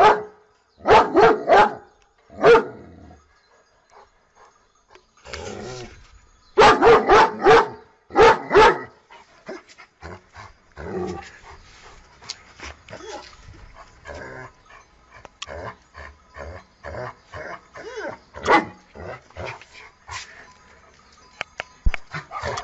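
German Shepherd barking in loud volleys of short barks: a few about a second in and a run of about seven from roughly seven to nine seconds in. After that, quieter scattered sounds follow, with one more bark later on.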